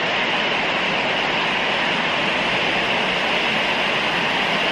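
Sound-art installation of many small speakers, each playing static at a different level, together making a steady, loud rushing hiss that sounds like a train coming.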